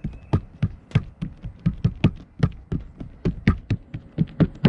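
Hands patting and pressing roof patch tape down onto a travel trailer's roof to make it adhere: a quick, even run of dull thumps, about four a second.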